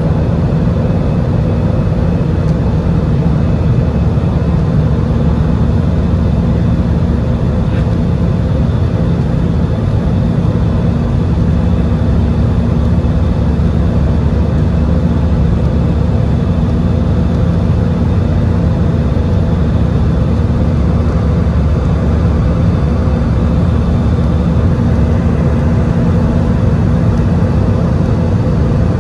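Steady cabin noise of an Airbus A320-200 in its climb: jet engines and rushing airflow heard from a seat over the wing, a loud even rumble with a low hum that holds one pitch.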